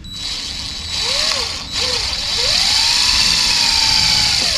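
Electric drill with a small pilot bit running, drilling a hole in a rifle stock for a bipod mounting stud. The motor starts at once, stops briefly under two seconds in, then speeds up, holds and begins to slow near the end.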